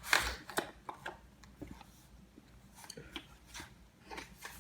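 Cardboard retail box and packaging being handled as the contents are pulled out: a sharp scrape of card sliding on card just after the start, then scattered light rubs, clicks and taps.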